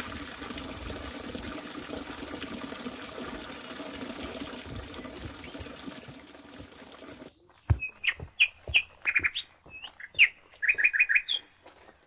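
Steady rush of running water. It cuts off abruptly about seven seconds in, and a small songbird then chirps in short, quick phrases, with a couple of low thumps among the first notes.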